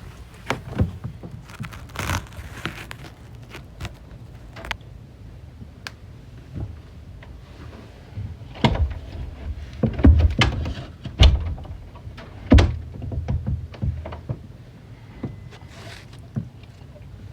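Household handling noises: a scattering of knocks, clicks and low thumps, the loudest few coming about nine to thirteen seconds in.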